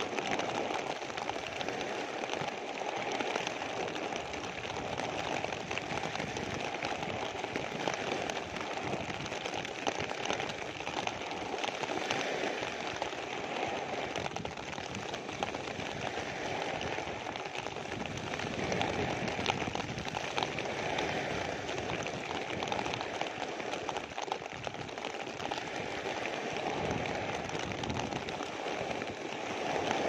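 Steady rain falling on a clear plastic sheet close by, with small waves breaking on a pebble shore and swelling up now and then.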